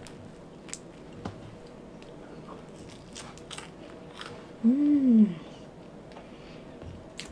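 A person chewing a bite of crisp fried pizza crust, with scattered small crunches. About five seconds in comes a short hummed "mmm" that rises and falls in pitch, the loudest sound.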